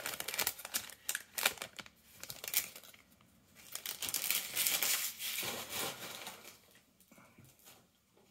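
Foil trading-card pack crinkling and tearing as it is pulled open by hand, then the stack of cards handled, with soft card flicks toward the end.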